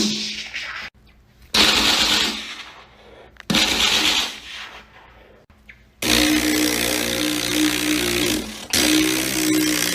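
A person making gun sounds with their mouth: two sharp hissing shot sounds, then a long buzzing, rattling burst that stops briefly near the end and starts again.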